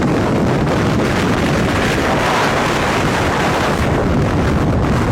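Strong wind blasting across the microphone, a loud, steady rush with heavy low rumble that swells a couple of seconds in.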